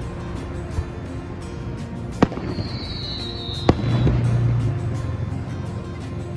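Aerial firework shells bursting: two sharp bangs about a second and a half apart. The second is preceded by a high whistle lasting just over a second and followed by a low rumble.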